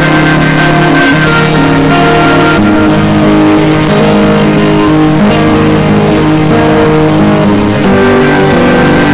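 Loud music with guitar playing steadily, a run of held notes changing pitch every half second or so.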